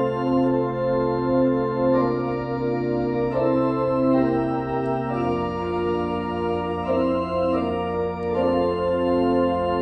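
Organ music: slow sustained chords over long held pedal bass notes, the bass shifting to a new note about halfway through.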